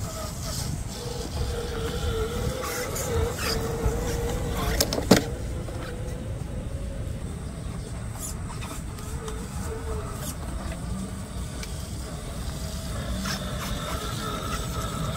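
RC scale crawler's small electric motor and gearbox whining as it drives through long grass, the whine wavering with the throttle, with one sharp click about five seconds in.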